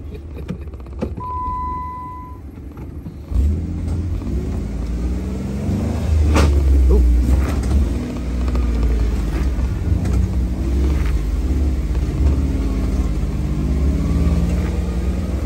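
Off-road vehicle's engine working under load as it climbs a rutted dirt trail, a low rumble that grows louder about three seconds in, with a sharp knock around six seconds. A short steady electronic beep sounds about a second in.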